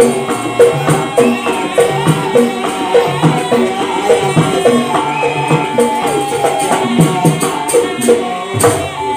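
Live jaranan accompaniment: Javanese gamelan-style percussion ensemble playing a fast, even beat with pitched strokes and a jingling rattle over it.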